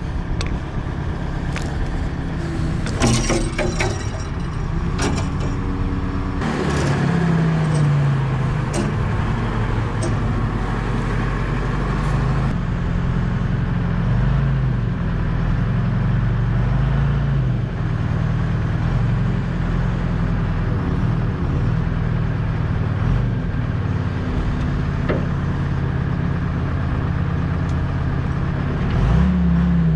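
Trojan wheel loader's engine running and revving up and down over and over as it works. A few sharp metal clanks and knocks come a few seconds in.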